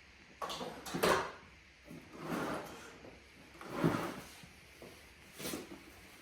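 Four short bumps, each a fraction of a second long, spaced about a second apart, the loudest about four seconds in, with quiet room tone between.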